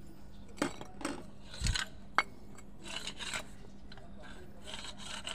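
Light metallic clinks and knocks as a removed engine water pump is turned over in the hands, one with a dull thump, then a patter of small clicks and scrapes as fingers pick at its failed impeller.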